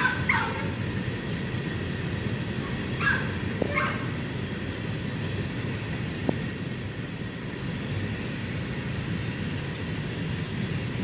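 Freight train of hopper cars rolling past, a steady low rumble of wheels on rail. A few short animal calls sound right at the start and again about three seconds in.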